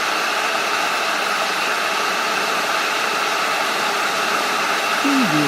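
Kettle heating water: a steady rushing hiss, with no whistle. A voice says "preview" near the end.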